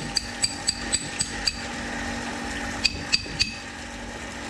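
A run of light metallic taps, about four a second, each with a short bright ring, over a steady low hum. The taps stop after about a second and a half, and three more follow around three seconds in.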